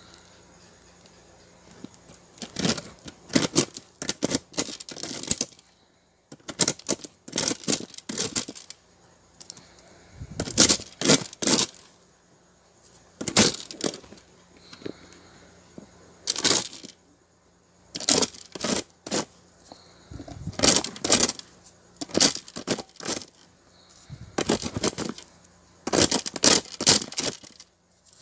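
Dried corn kernels being rubbed and twisted off the cob by hand. They crackle and rattle as they snap loose and drop onto the pile, in short bursts every two to three seconds.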